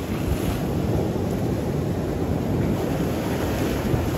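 Sea surf washing over a rocky shoreline, with wind buffeting the microphone: a steady, even rush of noise.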